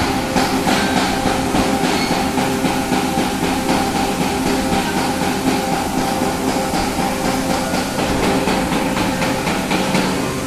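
Plastic injection moulding machine running in its charging stage, with the screw turning to take up plastic for the next shot. Its hydraulic drive gives a steady hum with several fixed tones over a fast, even rattle of clicks.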